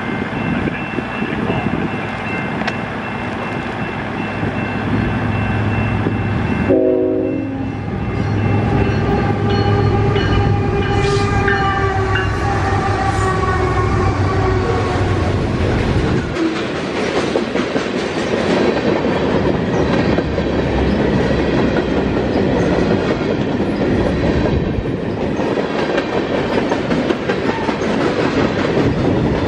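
Canadian National freight train passing a grade crossing. The locomotive horn sounds a steady chord, then the horn and diesel engine tones fall in pitch as the locomotives go by, with a heavy low rumble. From about halfway through, loaded freight cars roll past with a steady clatter of wheels over the rails.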